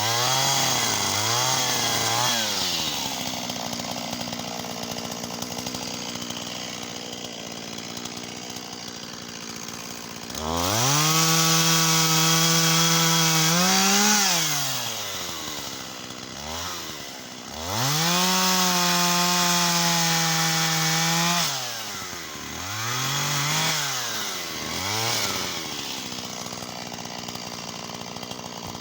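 Shindaiwa 488 two-stroke chainsaw: quick throttle blips, a spell of idling, then two long runs at full throttle of about four seconds each, likely bucking wattle. The pitch lifts at the end of the first run as the saw frees up. A few more blips follow before it drops back to idle.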